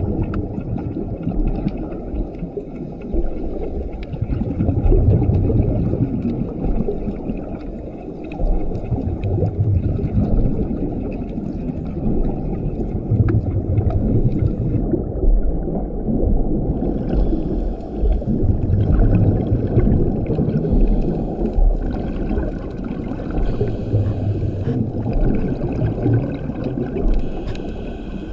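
Scuba regulator breathing heard underwater: the diver's exhaled bubbles gurgle out in a low burst about every four to five seconds over a steady watery hiss.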